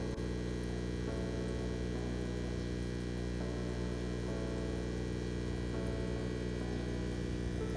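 A steady low hum made of several pitches, with some of the upper tones shifting every second or so.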